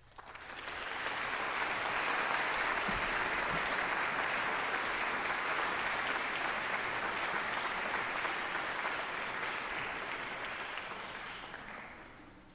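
Audience applauding after a piece of concert band music: the clapping swells within about a second, holds steady, then dies away near the end.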